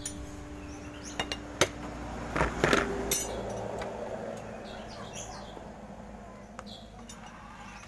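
Several metallic clinks and knocks in the first three seconds as the valve cover is lifted off a Yamaha Xeon scooter engine and handled, then birds chirping in the background.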